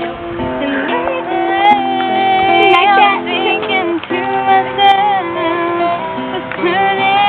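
A young woman singing while she plays an acoustic guitar, the chords ringing under her voice.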